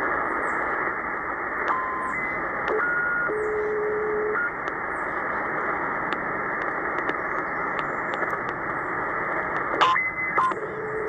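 Tecsun PL-990x shortwave receiver in upper sideband mode being tuned down the band: steady static hiss through its speaker, with short whistling carrier tones that change pitch and drop out as the frequency moves, and faint clicks.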